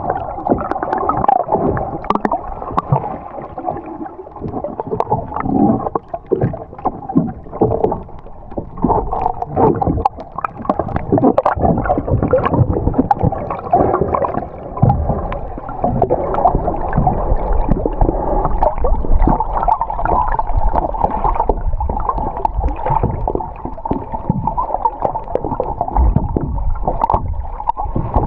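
Muffled, churning and gurgling water noise heard through an action camera's waterproof housing while it is held underwater, with irregular knocks and swells.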